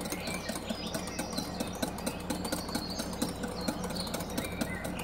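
Wire whisk beating egg yolks in a glass bowl, its wires tapping the glass in a quick steady rhythm. This is the continuous whisking used to temper the yolks with hot milk mixture.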